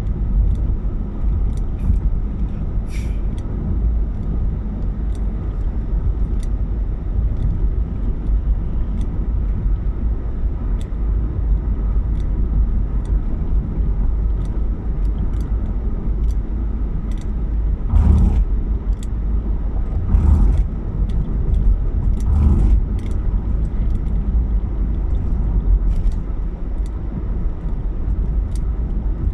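Steady low rumble of a car driving, with scattered faint clicks and three short louder swells about two-thirds of the way through.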